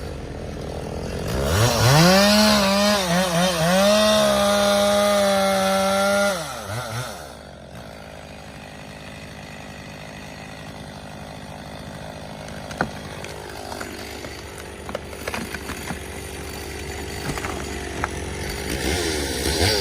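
Chainsaw revving up about a second and a half in and running at high, steady pitch for about five seconds, as when cutting, then dropping back to a lower, quieter stretch with a few short knocks, and revving up again near the end.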